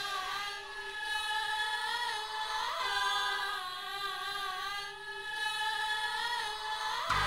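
Background music: choir-like voices holding long sustained notes in chords, with small pitch bends now and then and no beat.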